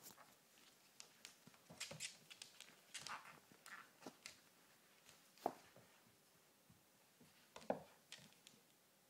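Faint, scattered clicks and taps of a miniature dachshund's claws and paws on a wooden floor as it tugs and scrambles with a blanket, with two sharper knocks about five and a half and seven and a half seconds in.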